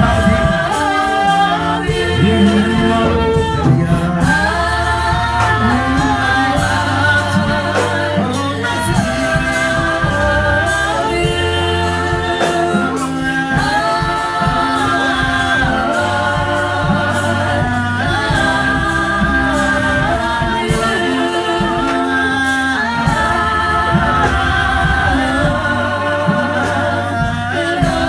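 Gospel worship song: several voices singing together over a bass line and a steady beat.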